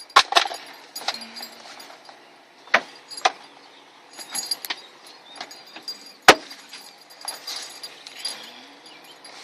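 Scattered clicks, clinks and knocks of metal and plastic door-handle parts being handled and fitted inside a car door, with one sharp, loud knock about six seconds in.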